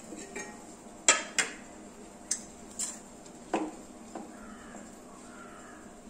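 A steel spoon clinking against a metal bowl, with about six sharp clinks in the first four seconds, as it scoops out a grated coconut and jaggery filling.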